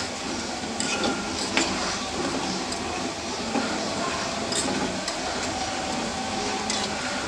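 Slices of raw banana deep-frying in a steel pot of oil, a steady sizzle, while a metal fork stirring them clinks against the pot several times.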